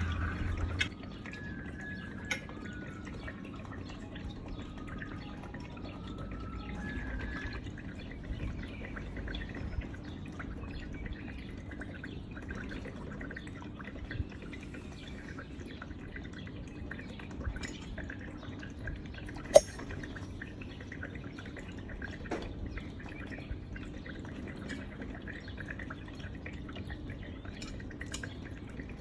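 Knife cutting through chilled, set milk pudding in a glass dish, with soft wet squelches and light clicks of the blade and of pudding cubes against glass. One sharper click comes about two-thirds of the way through.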